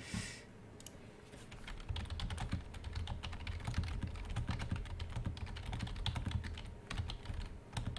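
Typing on a computer keyboard: a quick, uneven run of key clicks that grows busier about two seconds in.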